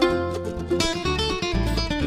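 Background music: a quick acoustic plucked-string instrumental led by guitar, over a steady bass line.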